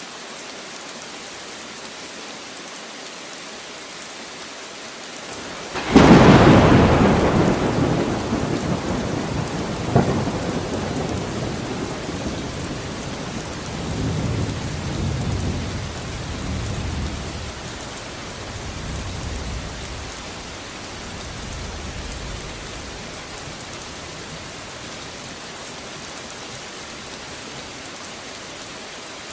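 Steady rain falling. About six seconds in, a sudden loud thunderclap breaks out and rolls on as low rumbling, with a second sharp crack a few seconds later. The rumbling dies away over the next ten seconds or so, and the rain carries on.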